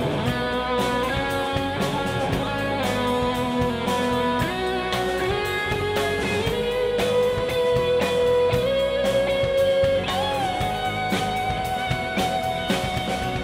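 Live band playing an instrumental break: an electric guitar carries the melody with held, bent notes over strummed chords and a drum kit keeping time on the cymbals.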